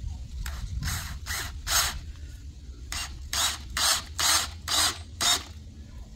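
Cordless drill driving a screw into a wooden board in short bursts: four quick pulses, a pause of about a second, then six more.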